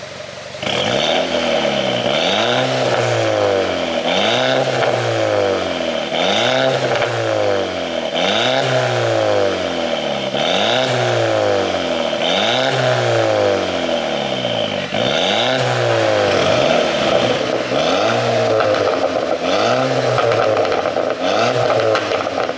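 Audi A4 2.0 TFSI turbocharged four-cylinder engine revved over and over, about once every two seconds, the pitch rising then falling away each time. Pops and crackles from the exhaust on the fall, from a pop-and-crackle ECU tune.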